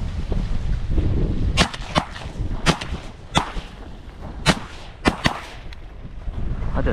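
Shotguns firing in a ragged volley: about seven shots over some four seconds, starting about a second and a half in. Wind rumbles on the microphone before the shooting.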